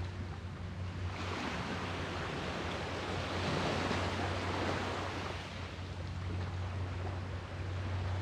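Sea waves washing in, the surf swelling about a second in and again through the middle, with a steady low hum underneath.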